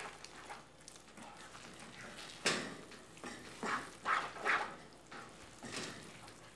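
Spoon stirring and scraping a thick, creamy salt-cod filling in a deep nonstick frying pan over the flame, in about five or six separate strokes, the first about two and a half seconds in. The filling has just been thickened with flour and is being worked to a firm, creamy consistency.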